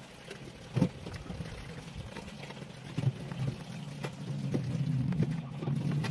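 Scattered clicks and light knocks of tools and laptop parts being handled, over a low steady hum that grows louder in the second half.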